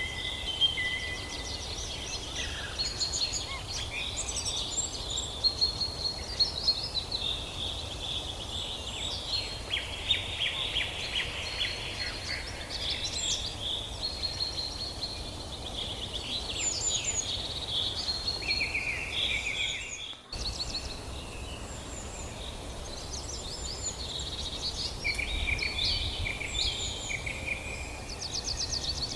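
Several songbirds singing and calling together in a forest, with overlapping chirps, rapid trills and short whistles, over a steady low rumble. A brief break in the sound comes about two-thirds of the way through.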